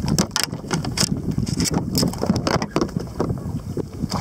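Wind rumbling on the microphone, with many irregular sharp clicks and taps running through it.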